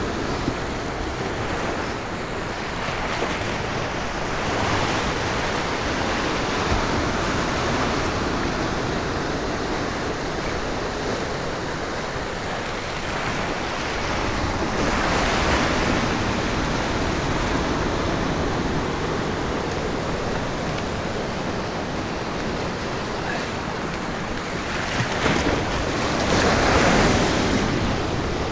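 Ocean surf breaking and washing against the rocks of a jetty, a steady rush that swells louder a few times, most clearly about halfway through and again near the end.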